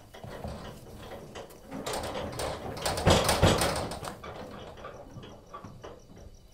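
A mesh sack of ginger being carried and heaved into a truck's cargo bed: rustling and scraping that build to a couple of heavy thuds about three seconds in, then die away.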